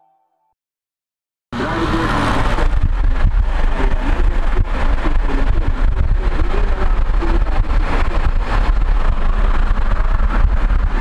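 Road and wind noise of a moving car heard from inside it: a heavy low rumble under a steady rushing. It cuts in abruptly about a second and a half in, after a moment of silence.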